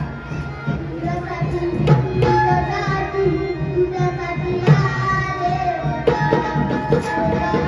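Marathi gavlan devotional music: tabla strokes under a sustained melodic line.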